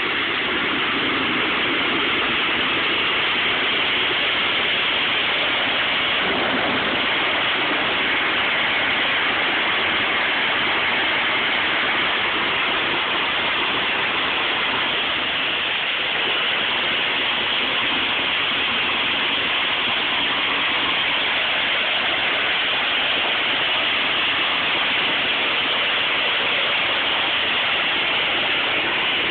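Small cruise-missile turbojet engine running steadily at ground idle, a dense rushing noise with no clear tone.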